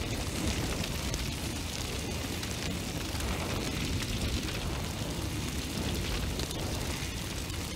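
Fire burning with a steady rushing noise and dense, continuous fine crackling.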